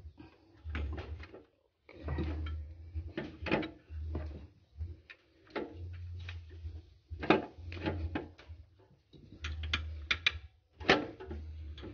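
Repeated knocks and clicks of metal parts and tools being handled during work on an alternator's rectifier, some in quick runs, over a low hum that comes and goes.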